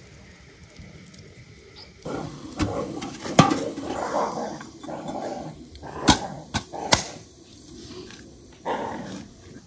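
Dogs playing and vocalising, with several sharp metallic clanks as a steaming samovar is handled.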